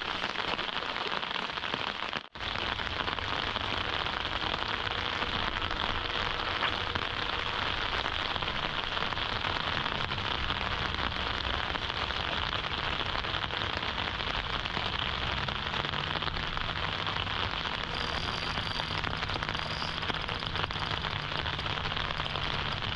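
Steady rain falling, an even hiss of drops that briefly cuts out about two seconds in.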